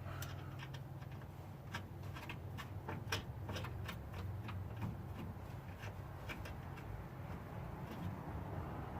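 Scattered light clicks and taps, about a dozen at irregular intervals, from hand tools and fittings being handled while a starter solenoid is fastened in place, over a steady low hum.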